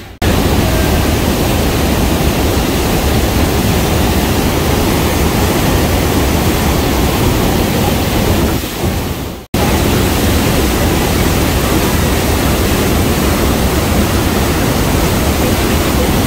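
Bridal Veil Falls at Niagara, heard at close range as water crashing onto the rocks at its foot: a loud, steady rush. It fades and cuts out briefly about nine and a half seconds in, then comes back at the same level.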